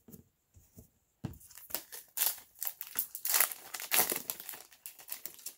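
A baseball card pack's foil wrapper crinkling and tearing as it is ripped open by hand, a run of crackling bursts starting a little over a second in and lasting about four seconds.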